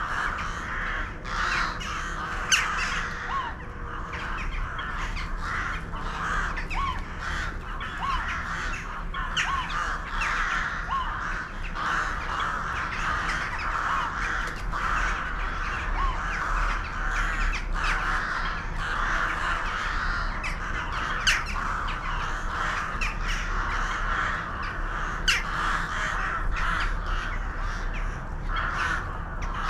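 A large flock of birds calling all at once, a dense continuous chatter with many short sharp calls standing out from it.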